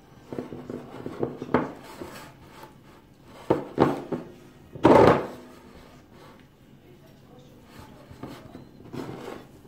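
Spatula stirring thick cake batter in a ceramic mixing bowl: soft scraping with irregular knocks against the bowl, the loudest about five seconds in.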